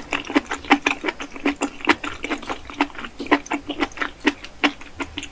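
Close-miked chewing of a burger: rapid wet mouth clicks and smacks, about five or six a second.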